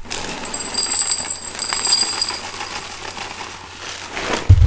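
Kashi GoLean Crunch cereal poured from its box into a bowl: a dense rattling patter of crunchy clusters, with thin high ringing tones through its first half. A low thump near the end.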